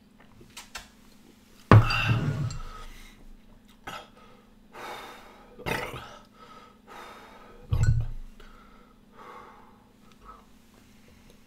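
A man catching his breath between bottles of a timed beer chug, breathing hard with two loud belches, about two seconds and eight seconds in. A sharp knock comes about halfway.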